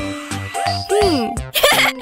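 Upbeat cartoon background music with a steady beat; about a second in, a tone slides downward, and in the second half a high-pitched cartoon voice giggles.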